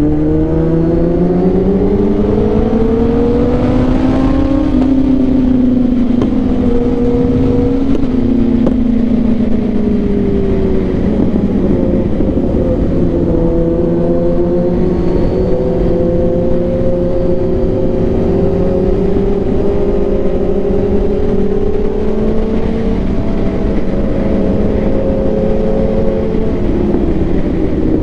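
Motorcycle engines running on the move, their pitch climbing for about the first four seconds as they accelerate, then easing back and holding fairly steady, with several engine notes overlapping over a low rushing noise.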